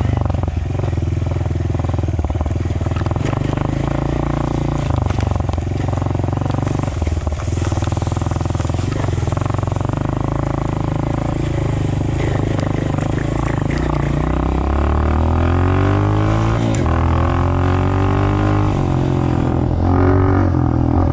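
Honda dirt bike engine running under way. About two-thirds of the way through, the engine note climbs steadily as the bike accelerates, then drops and rises again near the end.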